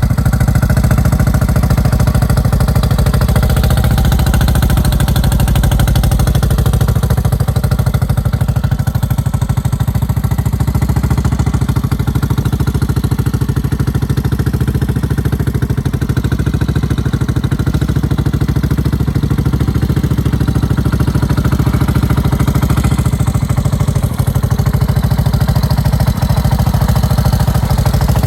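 1986 Yamaha SRX600's single-cylinder four-stroke engine running steadily at idle, a dense even beat of firing pulses, with the unnamed noise the bike is said to be making.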